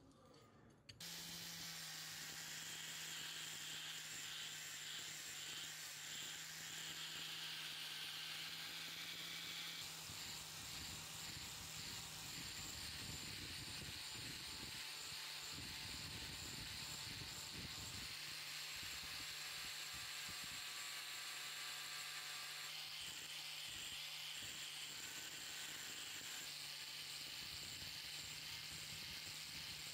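Electric angle grinder with a buffing disc running steadily as it polishes a steel wrench, a constant motor hum with a high hiss. The sound begins about a second in, and midway the hum turns rougher for a few seconds.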